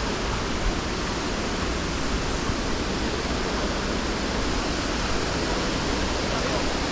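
Waterfall water rushing in a steady, even roar with no breaks.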